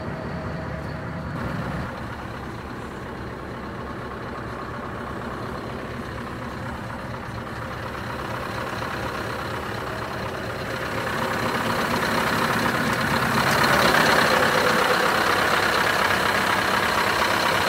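Scania R500 truck's V8 diesel engine idling steadily, getting louder with more hiss about two-thirds of the way in.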